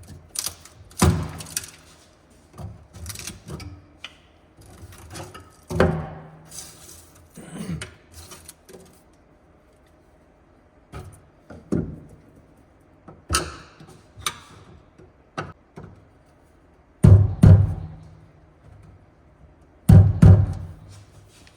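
Hand tools knocking and clattering against sheet metal while stuck Phillips screws are worked loose, with two heavy thumps that ring low near the end.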